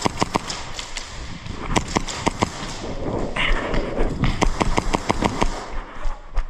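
Airsoft guns firing in quick strings of sharp shots: a few right at the start, another string about two seconds in, and a faster run of about six shots a second in the second half.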